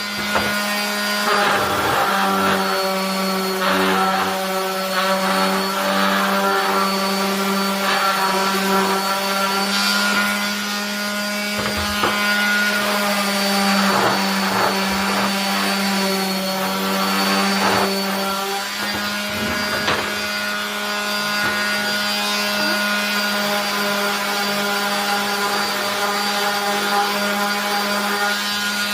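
Electric power sander running steadily with a constant motor hum, its pad scratching over a wooden board in swishes that come and go as it is moved.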